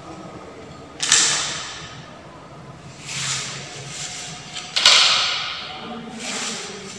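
Wooden set square and ruler knocking and sliding against a blackboard: two sharp knocks, about a second in and near five seconds, each trailing off into a scrape, with two softer scraping swells between and after.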